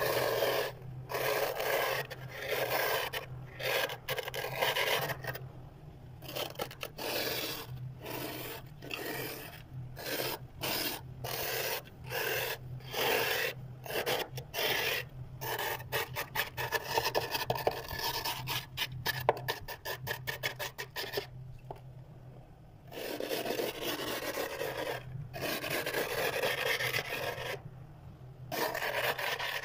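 Plastic scraper scraping thick frost from a freezer's walls in repeated strokes, irregular at first and faster in the middle. After a short pause about two thirds through, the scraping runs on in longer, steadier strokes.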